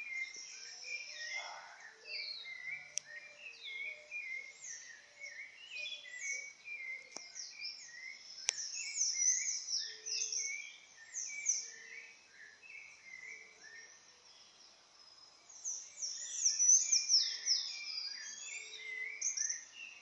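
Dawn chorus of several songbirds: many short chirps and quick falling whistled notes overlapping, at two different pitches. It swells loudest about halfway through and again near the end.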